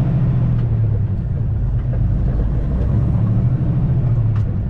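Semi-truck's diesel engine and tyres heard from inside the cab while cruising: a steady low drone.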